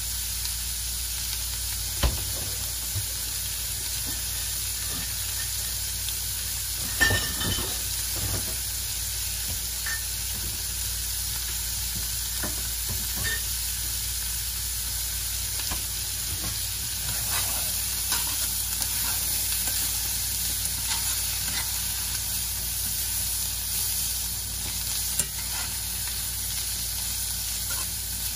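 Asparagus searing in butter and oil in a hot cast-iron skillet: a steady sizzle, with a few sharp clicks, the loudest a small cluster about seven seconds in.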